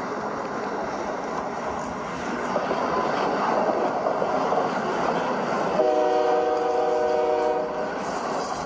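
A train running with a steady rumble and rattle. About six seconds in, a multi-note train horn sounds one held chord for about two seconds.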